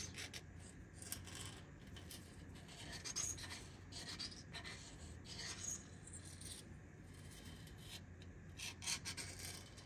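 Scotch-Brite pad scrubbing around the top edge of a Detroit Diesel 6-71 cylinder bore to loosen the carbon buildup: a faint, irregular scratchy rubbing.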